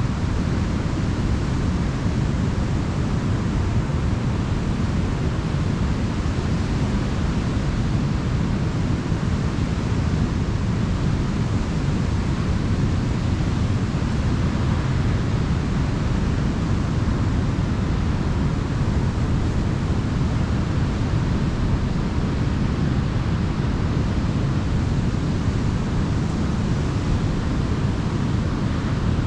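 Ocean surf on a beach: a steady, unbroken wash of waves with no single breaker standing out.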